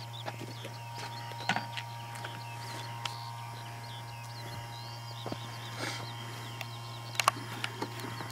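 Outdoor ambience: small birds chirping in short high calls over a steady low hum, with a few sharp clicks, the loudest about one and a half seconds in and again about seven seconds in.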